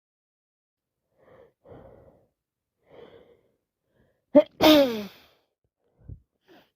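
A woman with a heavy cold sneezing once. A few soft in-breaths build up, then about four and a half seconds in comes a sharp, loud, voiced sneeze whose pitch falls away.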